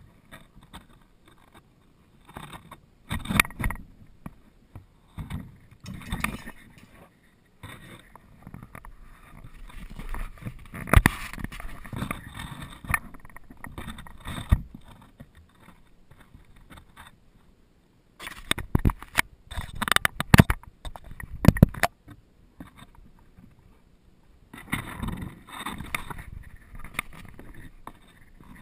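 Handling noise from a GoPro in a forearm strap mount: irregular rubbing and scraping of the housing and strap as the arm moves, with sharp knocks. A cluster of louder knocks comes about two-thirds of the way through.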